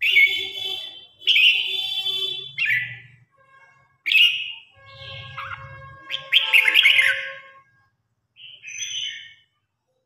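Red-whiskered bulbul singing: a string of about six short song phrases with brief pauses between them, the last one near the end fainter.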